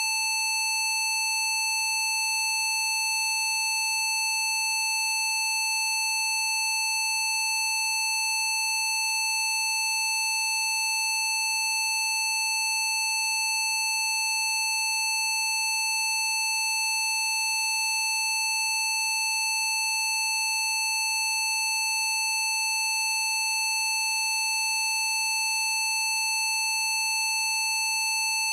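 Continuous synthesized frequency-therapy tone from a PC Zapper program, held at one unchanging pitch with no breaks.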